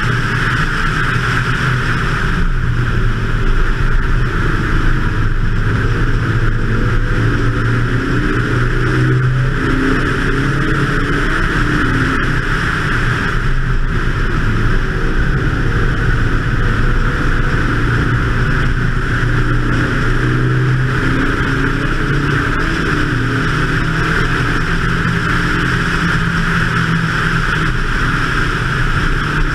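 BMW 2002's engine running hard at track speed, its pitch drifting up and down with throttle and gear changes, over a constant rush of wind.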